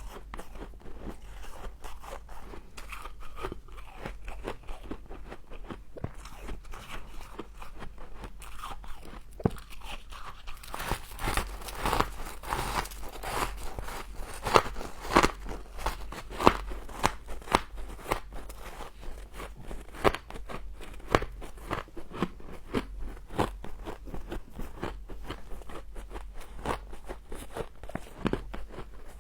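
A person biting and chewing mouthfuls of frost, with a steady run of sharp crunches that grow louder and closer together in the middle.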